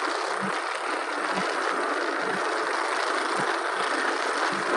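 Steady rush of wind and road noise from a motorcycle moving at speed on a wet road, heard through a helmet-mounted camera's microphone, with irregular low buffeting thumps.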